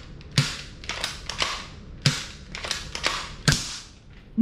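Toy foam-dart blaster fired at a wall with a bang snap (small snap-pop firecracker) taped to the dart tip, which pops on impact: a series of sharp clicks and cracks, the three loudest about a second and a half apart.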